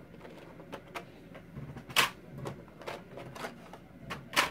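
Wooden colored pencils clicking and rattling against one another as they are picked through in a box, with two sharper clacks about two seconds in and near the end.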